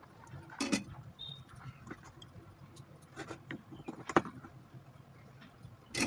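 Handling noise from an opened plastic LED bulb and its small parts on a workbench: a few light, separate clicks and taps, the loudest within the first second, about four seconds in, and at the very end.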